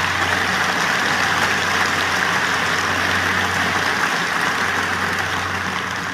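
Large audience applauding, a dense steady clatter of many hands that starts to die down near the end.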